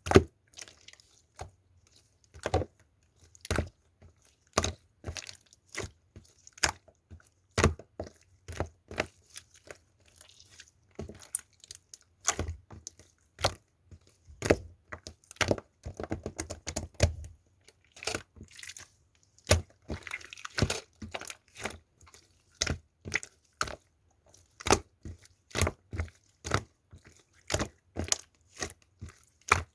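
Clear slime with crunchy 'glass shard' bits being squeezed and poked by hand, giving irregular sharp crackles and pops about one or two a second, with a denser stretch of crackling around the middle.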